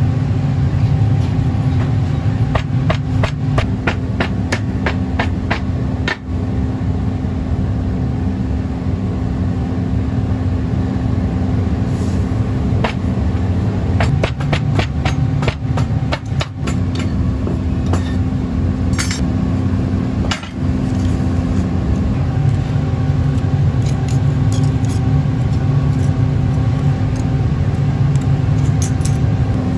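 Moulding sand being rammed into a sectioned metal casting flask: a series of sharp, irregular knocks and taps as the rammer strikes the sand and the flask, over a steady low mechanical hum.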